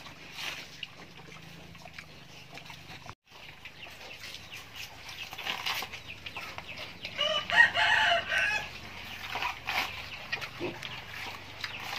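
A rooster crows once, a long call of about a second and a half beginning some seven seconds in, the loudest sound here, with scattered faint clucks and ticks around it.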